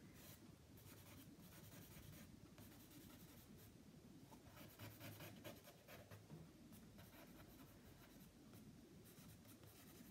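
Willow charcoal stick scratching faintly over cartridge paper in many short, quick strokes, shading a drawing.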